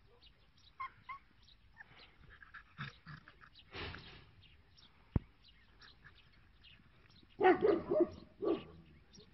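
Tibetan mastiff puppies play-fighting, with a couple of small yips about a second in and a louder burst of barking and yapping near the end.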